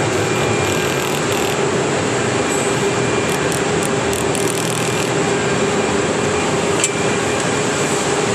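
A machine running steadily: even noise with a constant mid-pitched hum and a faint high whine, with no regular clicking.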